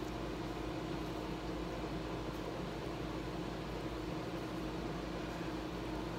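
Steady machine hum with a constant low tone, unchanging throughout.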